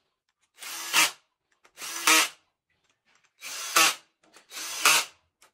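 Cordless drill/driver running down camshaft-cap bolts on a diesel cylinder head in four short runs, each getting sharply louder at its end as the bolt seats.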